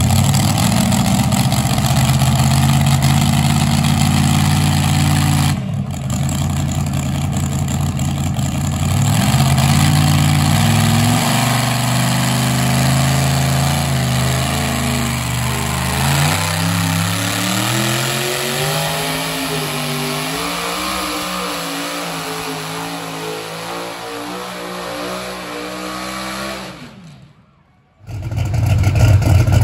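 Limited super stock pulling tractor's engine running loud and steady, then climbing and wavering in pitch as it pulls the weight sled under load, and dying away near the end. A different engine comes in loud just after a brief gap.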